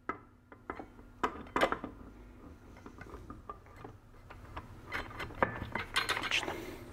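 Steel and friction clutch plates clinking and clicking against the splines as they are worked one at a time into the clutch drum of an A6MF1 six-speed automatic transmission. There are a few sharp clicks in the first two seconds and a denser run of clinks near the end.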